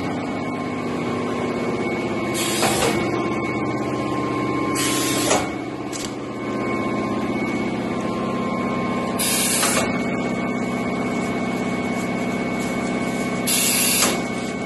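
A two-line plastic roll-bag cutting machine running with a steady mechanical hum and a high whine. Four short hisses come a few seconds apart.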